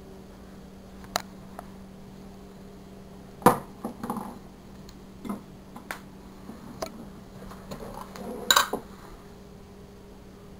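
Scattered clinks and knocks of a glass jar and a plate being handled on a wooden table during sandwich-making, the two loudest about a third of the way in and near the end, over a steady low hum.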